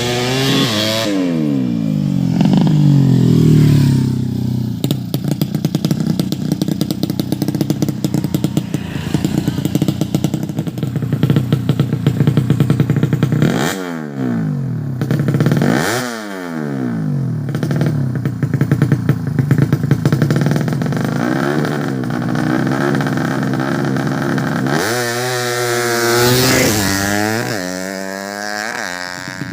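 A 130cc drag-bike engine running and being revved up and down in quick blips. It rises and falls about a second in, twice in quick succession around the middle, and again near the end, running steadily at lower revs in between.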